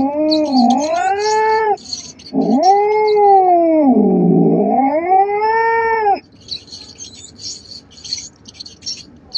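Domestic cat caterwauling: two long yowls, each sagging in pitch and then rising again, the second longer and ending about six seconds in. Short high chirps run behind them and go on alone for the last few seconds.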